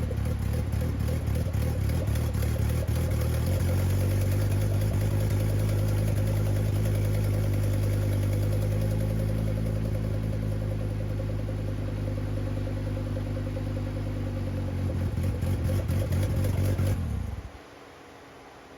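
VW 07K 2.5-litre five-cylinder turbo engine running on its first start after a rebuild, obviously not running right. The sound steps up a few seconds in, grows uneven near the end, then cuts off suddenly as the engine stops.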